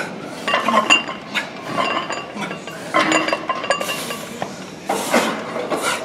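Iron weight plates on a loaded barbell clinking several times as reps are pressed on an incline bench, with short metallic rings between the knocks.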